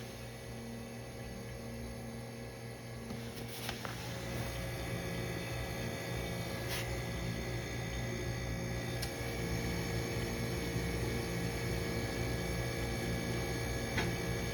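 Vintage Electrohome dehumidifier running: steady hum of its Matsushita reciprocating compressor and fan motor, with four brief faint ticks.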